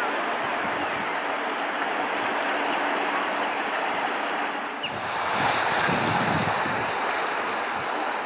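Small waves washing and lapping over shoreline rocks, a steady rushing hiss. About five seconds in, gusts of wind buffeting the microphone come in under it.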